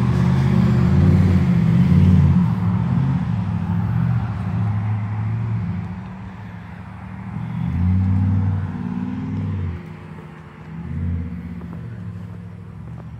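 A motor vehicle's engine running, loudest in the first few seconds and then fading, with its low rumble swelling again twice.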